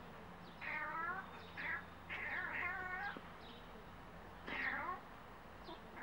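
Domestic cat giving a series of short, wavering trills and chirrups, the chattering call a cat makes at birds it is watching.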